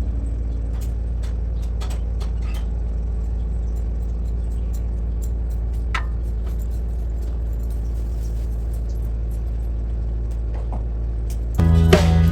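A steady low rumble with scattered faint clicks. Background music with drums comes back in loudly near the end.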